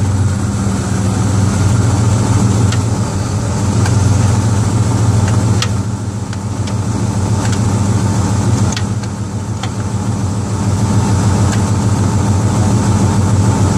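Ford 7.5-litre (460) V8 of a 1995 F-250 idling steadily while the transmission is shifted through the gears, with scattered light clicks. No grinding: the freshly bled hydraulic clutch releases fully.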